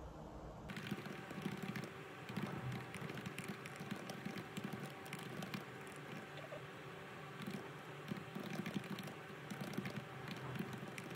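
Typing on a laptop keyboard: fingers tapping the keys in quick, uneven runs of soft clicks.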